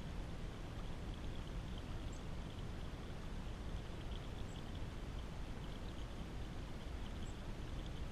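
Small stream of water trickling and splashing steadily down over stacked rocks.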